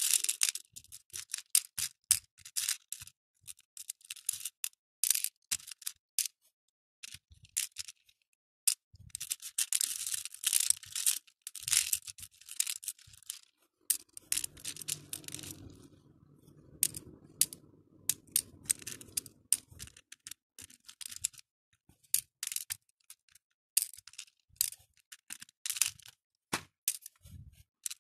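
Acrylic beads clicking against each other and the clear plastic compartment tray as fingers pick through and sort them. The clicks come quick and irregular, thickening into a dense rattle about ten seconds in.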